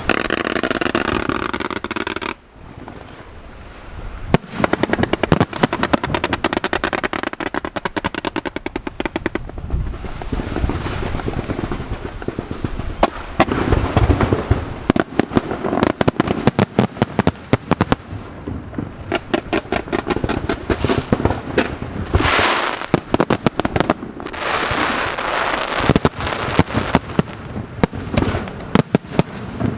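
Aerial fireworks display: after a steady rush that cuts off about two seconds in, rapid runs of sharp bangs and crackles follow one another, many reports a second.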